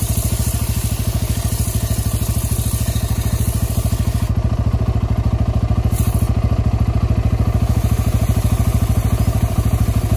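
A Bajaj Pulsar N250's single-cylinder engine idling steadily, with an even, rapid low putter.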